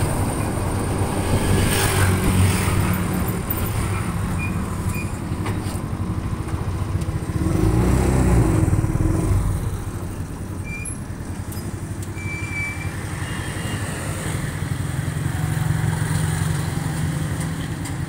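Small engine of a motorcycle rickshaw running while riding along a street, with other traffic going by. The engine noise is louder in the first half and drops to a lower hum about halfway through.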